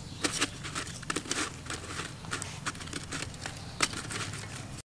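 Coarse salt crunching and lemongrass stalks rustling as they are pressed and laid in the salt in an aluminium pot: irregular crackles and clicks, with one sharper click near the end.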